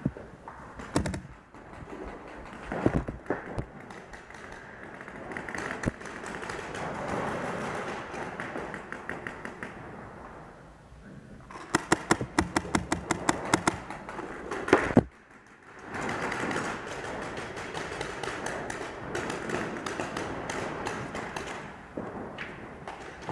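Paintball marker firing a rapid string of shots, about seven a second for some three seconds around the middle, ending with one louder shot. Softer scattered knocks and noise fill the rest.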